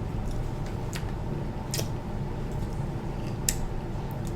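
Close-miked eating sounds: a handful of short sharp clicks and wet smacks from chewing and handling seafood, over a steady low hum.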